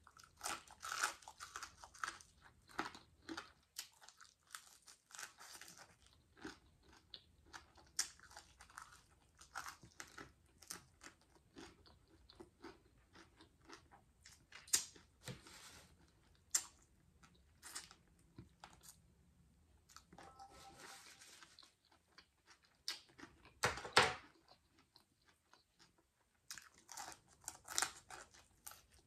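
A person chewing and biting into crunchy fried croaker close to the microphone: many small crunches and mouth clicks, with a louder crunch about three-quarters of the way through.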